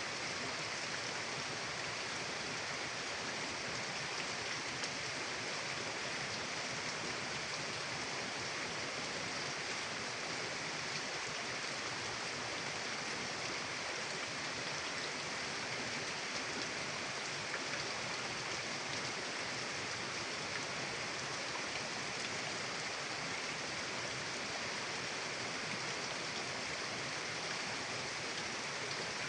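Steady rushing of a mountain river flowing over rocks, an even hiss of water with no change.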